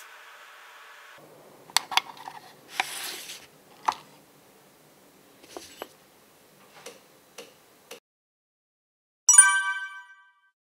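A steady hum that cuts off about a second in, then scattered light clicks and a short rustle, then a bright ringing chime near the end that fades out over about a second.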